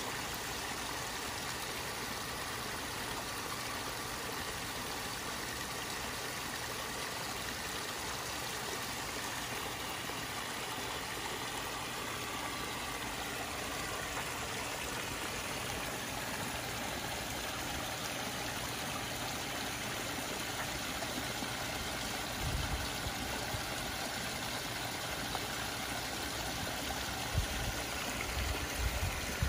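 Steady rush of running water into a koi pond. A few short low thumps come in near the end.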